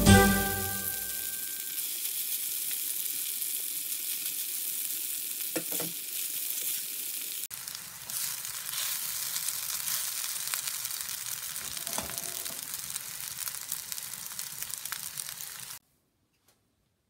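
Spaetzle frying in butter in a nonstick pan: a steady sizzle, with a few scrapes as a spatula stirs them. The sizzle cuts off suddenly near the end.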